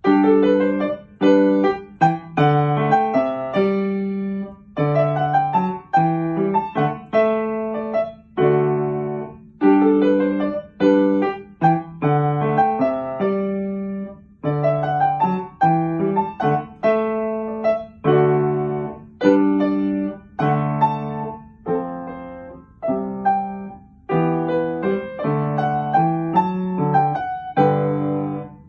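Upright piano playing an anonymous corranto, a simple Grade 2 piece: a melody in the right hand over a lower bass line, in short phrases, each ending with a brief dip in sound before the next begins.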